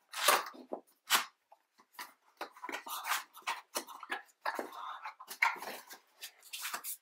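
Cardboard packaging being handled as a box is opened: the outer sleeve slid off and the inner box's lid and flaps lifted, giving an irregular series of short scrapes and rustles.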